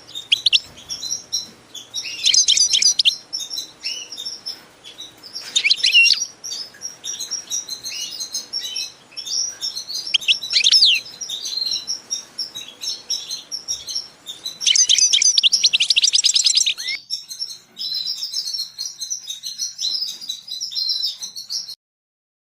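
Small songbirds chirping and singing, with several loud rapid trilled phrases over a steady stream of high chirps; the sound cuts off suddenly near the end.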